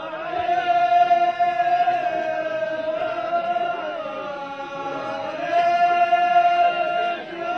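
Ahwach chant: men's voices singing long, held notes in unison, in two phrases, the second beginning a little past halfway.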